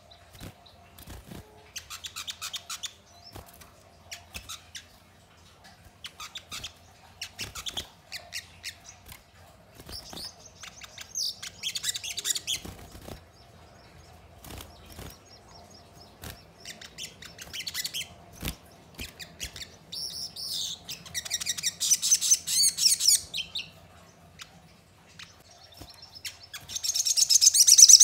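A sunbird (the Indonesian 'sogon') calling with short, high chirps that build into fast, high trilled song bursts about twenty seconds in and again near the end. The last burst is the loudest.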